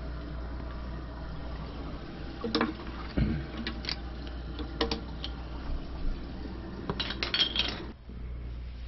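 Hard objects clinking and knocking as they are handled: a few scattered sharp clicks, then a quick cluster of clinks near the end, over a steady low hum.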